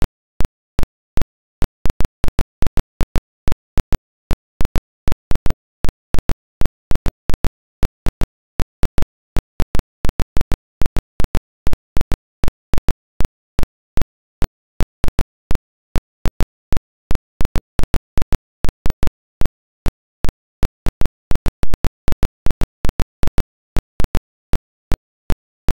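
Irregular sharp clicks and pops, about three to four a second, with dead silence between them, like the crackle of a worn soundtrack or film transfer.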